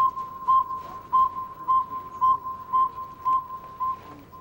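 Recorded northern saw-whet owl call played back from a cassette player: a steady series of evenly spaced, whistled toots, a little under two a second, all on one pitch, stopping shortly before the end. It is owl-attracting playback, not a live owl.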